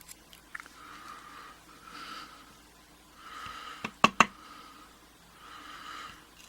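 Close, soft breathing through the nose every second or two, with a quick cluster of three or four sharp clicks about four seconds in.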